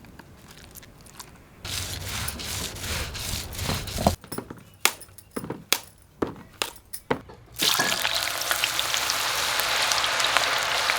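A quick series of separate sounds: a short rush of noise, then about eight sharp clicks and knocks, then from about seven and a half seconds in a loud, steady hiss that cuts off abruptly.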